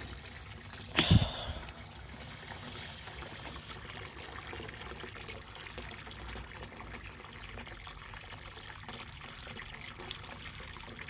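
Water trickling steadily through a pump-fed DIY pond filter box as it fills, with a single short knock about a second in.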